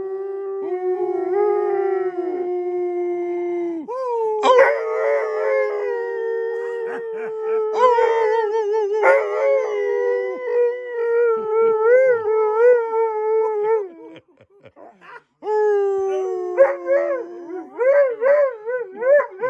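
Hound dog howling: long drawn-out howls that waver and warble in pitch, broken by a short pause about fourteen seconds in before the howling starts again.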